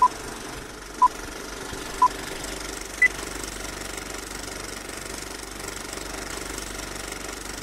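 Four short electronic beeps a second apart, three at one pitch and the last an octave higher, in the pattern of a countdown, over a steady low rumbling drone.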